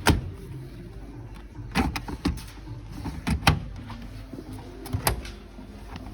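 About six sharp knocks and clicks, some in quick pairs, over a steady low hum.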